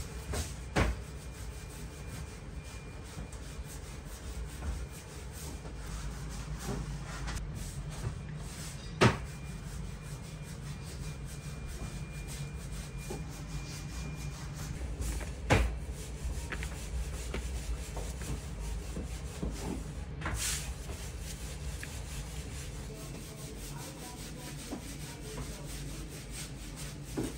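Gloved hands rubbing and pressing chopped meat-and-onion filling into rounds of dough for samsa, over a steady low hum, with a few sharp knocks, the loudest about 9 s and 15 s in.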